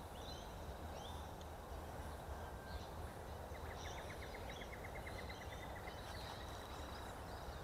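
Quiet outdoor ambience: a low steady hiss with birds chirping now and then. About halfway through there is a fast run of faint ticks, roughly nine a second, lasting a little under three seconds.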